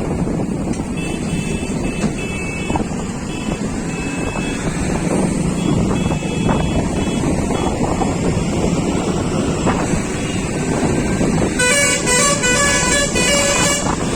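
Steady rushing background noise, with a rapid, pulsing multi-tone vehicle horn sounding for about two seconds near the end.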